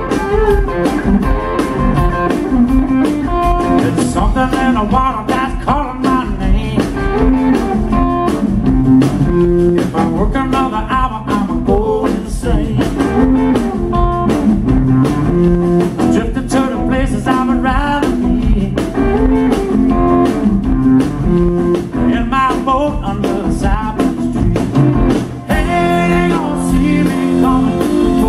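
Live electric blues band playing: electric guitar over bass guitar and a drum kit. The music starts abruptly at full volume.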